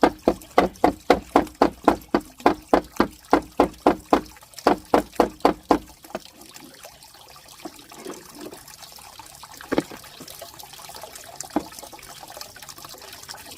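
Water sloshing in quick, even pulses, about four a second, for roughly six seconds before it stops. Two faint knocks follow later.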